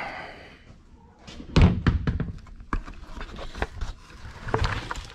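A plastic bucket of food scraps being tipped into a worm bin: one heavy thud about a second and a half in, then a run of scattered knocks and rattles as the bucket is handled and the scraps slide out onto the compost.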